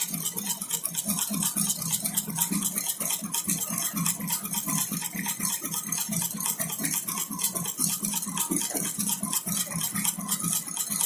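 Multi-needle embroidery machine stitching at high speed: a rapid, even metallic clatter of needle strokes over a steady motor hum.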